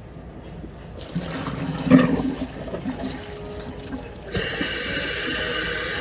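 A few knocks and handling clatters, then about four seconds in a sink tap is turned on and water runs steadily.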